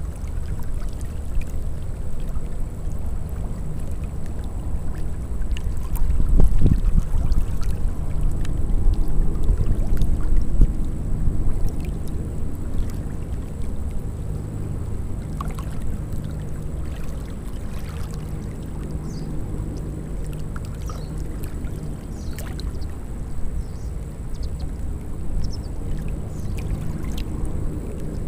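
Small waves lapping and splashing at the shoreline, with a low rumble of wind on the microphone that swells for a few seconds about six seconds in.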